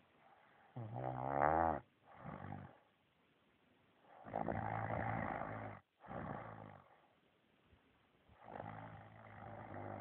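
A man snoring in his sleep: three long snores about three and a half seconds apart, each followed by a shorter, quieter breath.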